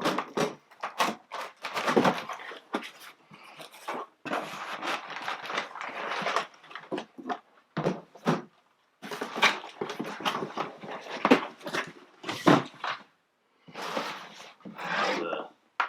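Cardboard sneaker box being handled: rustling, scraping and light knocks in irregular bursts, with a few brief silent gaps.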